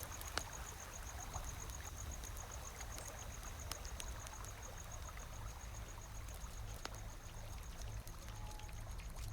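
Faint sound-effects ambience of trickling, flowing water, with scattered small drips and a low rumble. Over it runs a rapid, high-pitched pulsing chirp that stops about seven seconds in.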